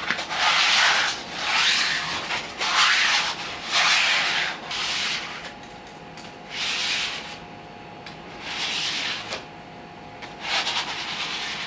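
Contact cement being spread across a laminate sheet with a hand glue spreader: about eight long strokes, each lasting around a second, quickly one after another at first, then more spaced out.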